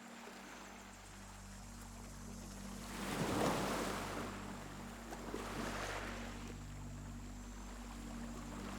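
Sea waves washing ashore: a larger wave swells and breaks about three seconds in, and a smaller one follows near the six-second mark, over a steady low hum.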